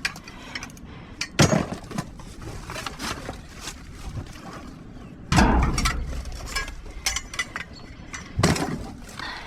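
Rummaging through trash in a metal dumpster: scattered clinks and rattles of debris being shifted, with louder crashes about a second and a half in and near the end, and the loudest, a crash with a low boom, about five seconds in.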